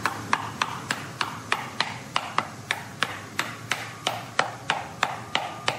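A cloth-wrapped mallet hammering steadily on a wooden cross brace, driving it down onto a turned hardwood pedestal table base. The blows come about three a second, each a sharp knock with a short ring.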